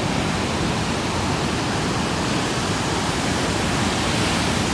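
Ocean surf breaking, heard as a steady, unbroken noise.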